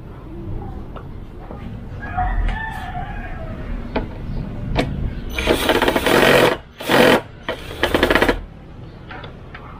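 Cordless drill run in three short bursts against a plastic headlight housing, about five to eight seconds in. About two seconds in, a rooster crows.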